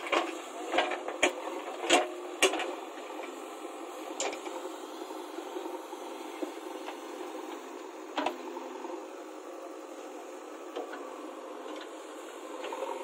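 JCB 3DX backhoe loader's diesel engine and hydraulics running steadily while the digging arm works. Several sharp knocks come in the first two or three seconds, with single ones about four and eight seconds in.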